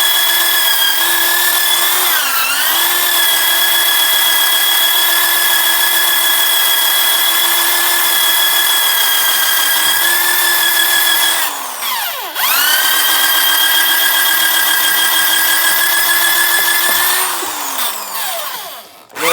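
Makeshift power polisher, a drill-type electric motor, running at speed with a steady whine. Its pitch dips briefly a couple of seconds in, and about twelve seconds in it spins down and comes straight back up. Near the end it winds down to a stop.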